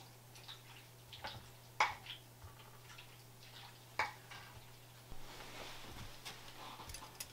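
Wooden spoon stirring diced fish and tomato in a glass dish, with a few light clicks against the glass; then, about five seconds in, the soft scraping of a vegetable peeler stripping cucumber skin.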